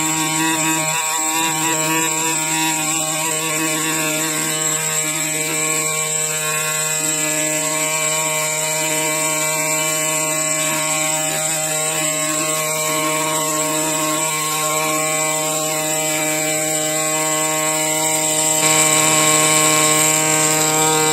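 ME9100 pneumatic air scribe fitted with a muffler, running steadily as its carbide needle chips concretion rock away from a fossil crab. A continuous high buzz with a steady hum under it, a little louder near the end, cutting off right at the end.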